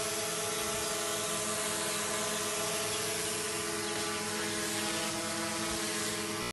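DJI Mavic Pro quadcopter hovering, its propellers making a steady buzzing whine with several held pitches.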